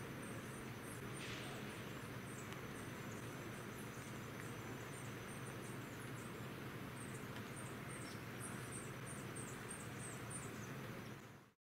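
Forest ambience: a thin, steady high-pitched whine with a long run of rapid, very high chirps over it, fading out just before the end.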